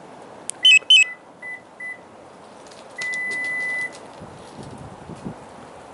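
Electronic warning beeps from a 2017 Toyota RAV4's power liftgate, triggered from the key fob: two loud chirps, three short beeps, then one steady beep about a second long, signalling that the tailgate is about to open.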